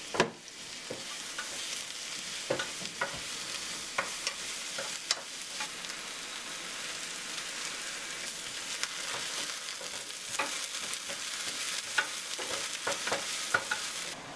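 Chopped onion sizzling in oil in a rectangular nonstick pan, stirred with a wooden spatula that now and then scrapes and taps against the pan.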